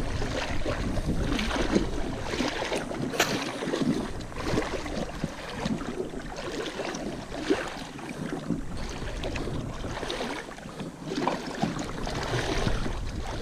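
River water splashing and sloshing in irregular bursts, with wind rumbling on the microphone and a sharp knock about three seconds in.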